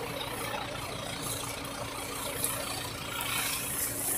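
A steady engine-like hum with one constant tone running under it.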